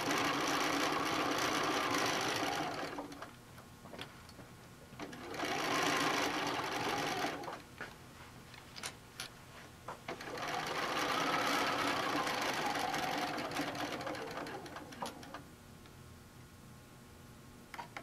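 Bernina sewing machine stitching through layers of cotton fabric in three runs with short pauses between. In the last and longest run the motor speeds up and then slows down. Small clicks can be heard in the pauses.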